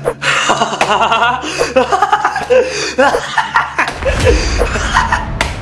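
A young woman laughing gleefully in quick, broken bursts, a villain's gloating laugh. Near the end a low rumble sets in underneath.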